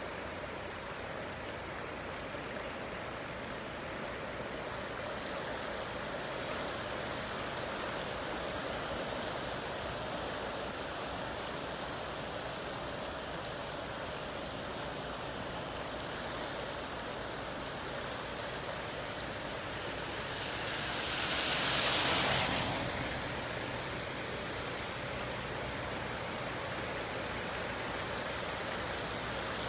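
Fast-flowing flash floodwater rushing in a steady roar-less hiss. About twenty seconds in, a louder hiss swells and fades over some three seconds.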